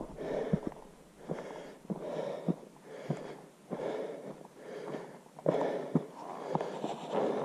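A person breathing audibly close to the microphone, with breaths coming about every second or two, and short sharp clicks in between.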